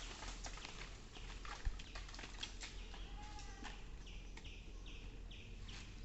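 Birds calling: one short call about halfway through, then a quick run of repeated high chirps, about three a second. Faint scattered crackling ticks run underneath.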